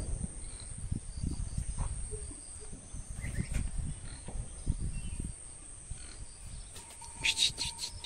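Outdoor farm ambience: a steady high insect shrill, typical of crickets, with uneven low rumble from the handheld phone moving. A short run of high chirps comes about seven seconds in.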